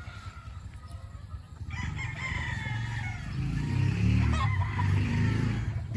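Gamefowl rooster crowing: a drawn-out, slightly falling crow beginning about two seconds in, followed by further calls, over a steady low rumble.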